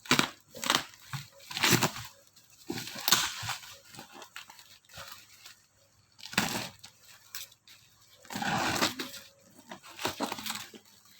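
Packaging being handled, crinkling and tearing in irregular bursts with short pauses, as a replacement phone LCD is unboxed.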